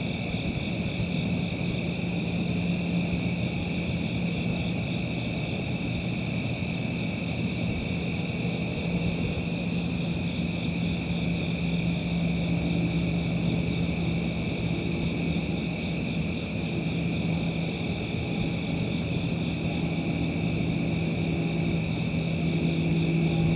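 Steady outdoor ambience: a constant low hum over a rumbling noise, with a second, higher hum joining about halfway, and a steady high-pitched drone above.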